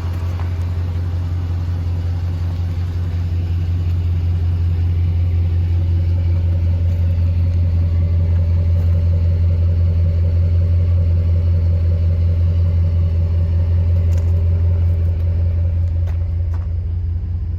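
Pickup truck engine idling with a steady low rumble, swelling slightly through the middle. A couple of faint clicks near the end.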